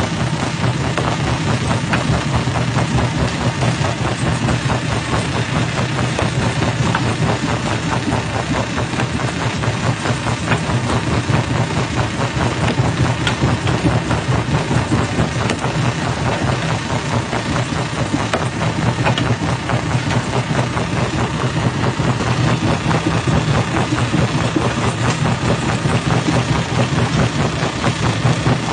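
Jaw crusher running steadily: a constant machine drone with rock clattering and cracking through it the whole time.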